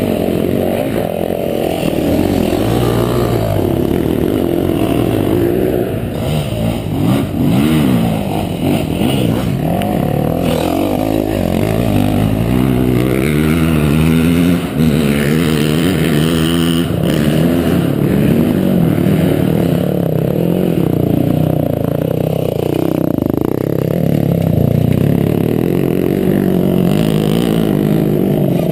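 Single-cylinder four-stroke Husqvarna enduro dirt bike engines running and revving, the pitch rising and falling again and again as the throttle is blipped and opened on a dirt trail.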